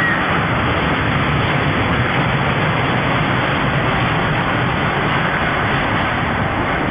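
Roller coaster train running on its track, a loud, steady rushing noise.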